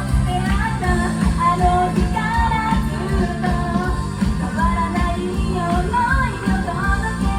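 A pop song: a singer's voice over a backing band with a steady beat and heavy bass.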